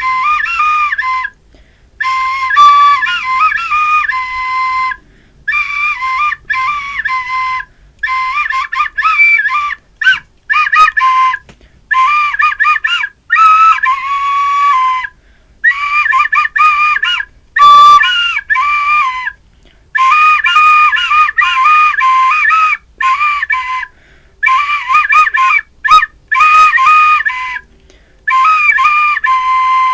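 Solo Chinese flute playing a simple melody in short phrases of one to three seconds, with brief pauses between them for breath. About halfway through, a short noisy burst stands out between phrases.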